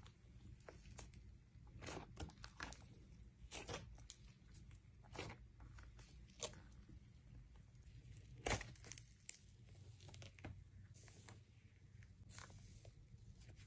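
Hands stretching, pulling and poking thick slime, making quiet, irregular crackles and small tearing pops, with one louder snap about eight and a half seconds in.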